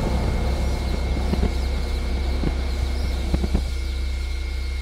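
Steady low hum of hatchery machinery with a constant high whine over it and a few faint knocks.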